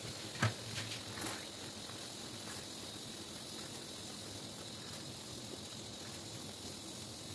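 Butter-garlic sauce with chicken pieces simmering with a steady hiss in a frying pan as a silicone spatula stirs it. About half a second in the spatula gives one sharp tap on the pan, followed by a few lighter knocks.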